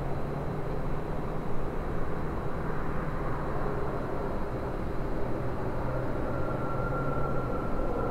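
Distant Falcon Heavy rocket engines heard as a steady low rumble, its loudness flickering.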